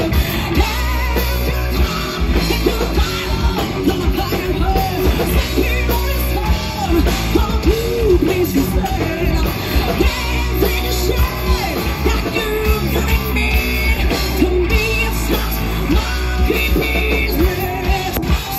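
Live hard rock band playing: electric guitar, bass guitar and drums over a heavy low end, with a woman singing lead at the mic.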